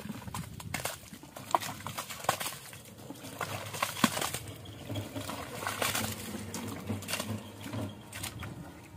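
Hands digging through thick wet mud, with irregular squelches and slaps.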